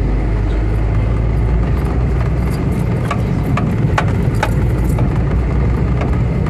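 Car engine running as the car drives along a rough dirt track, a steady low rumble. A few sharp knocks come in quick succession around the middle.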